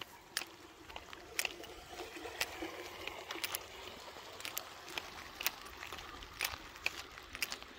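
Footsteps walking on a concrete farm road, a sharp click about once a second, over a faint steady trickle of water.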